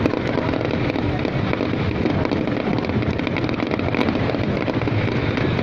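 Fireworks going off continuously: many overlapping bursts and crackles that merge into a steady, dense din, with no single loud bang standing out.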